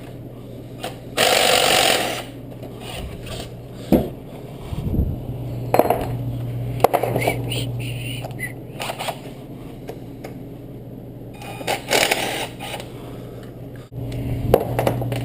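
Hand tools working on car alternator bolts: scattered metallic clinks and knocks, with two short bursts of scraping about a second in and about twelve seconds in, over a steady low hum.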